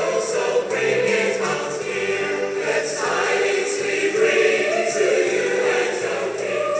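Background music: a choir singing sustained, overlapping lines.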